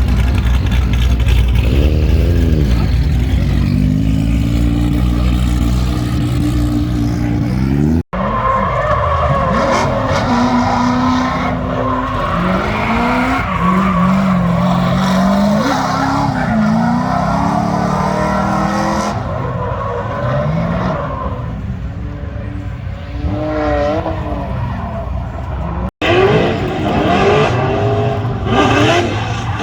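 Drift cars running hard: engines revving up and down repeatedly with tyre squeal and skidding, in several clips with two abrupt cuts between them.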